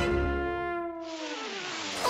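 Cartoon score: a held brass note, horn-like, that slides down in pitch over the last second, with a hissing noise joining about halfway through.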